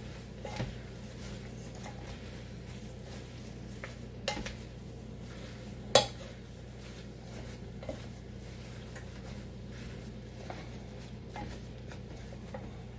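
A utensil clinking and knocking against a cooking pot as vegetables are stirred, a handful of sharp knocks with the loudest about six seconds in, over a steady low hum.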